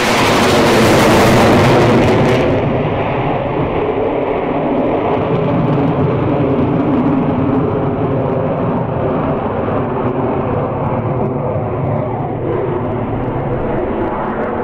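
MiG-29 fighter jets' twin turbofan engines running overhead. A loud, full-range jet roar with strong hiss cuts off abruptly about two and a half seconds in, leaving a steady, lower engine rumble with a faint whine.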